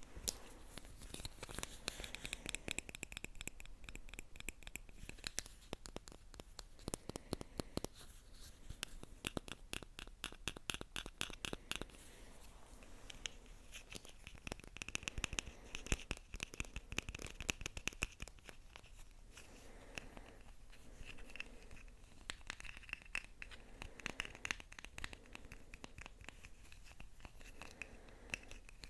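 ASMR scratching close to the microphone: a dense, fast run of small scratchy strokes and clicks that never stops.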